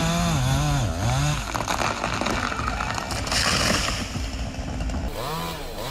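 Two-stroke chainsaw running in a cut, its engine pitch dipping and recovering as it bogs under load. From about a second and a half in there are several seconds of rapid crackling and snapping. The saw's engine is heard again near the end.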